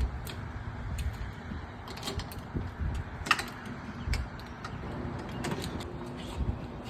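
Scattered clicks and clunks of a vending machine's lock and front door being worked open, over a low rumble.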